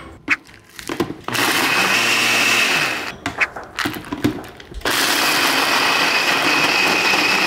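Ninja Auto-iQ personal blender blending a milkshake. Its motor runs in two spells with a high whine: once for about a second and a half, starting a little over a second in, then again from near the five-second mark after a short pause. Light clicks come in the quiet stretches.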